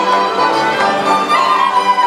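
Moravian folk band music led by fiddles, playing a dance tune.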